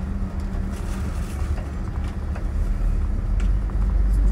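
Road vehicle driving: a steady low engine and road hum, with a few faint ticks.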